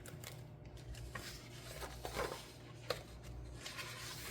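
Faint handling of a picture book, its pages rustling with a few soft clicks, over a low steady hum.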